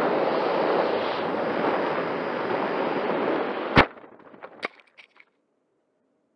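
Steady rush of airflow and ducted-fan noise picked up on board a Freewing MiG-29 twin 80 mm EDF model jet as it falls in a stall. A little under four seconds in it crashes into the ground with one sharp, loud impact, then a few smaller knocks as it tumbles through grass, and the sound drops almost to nothing.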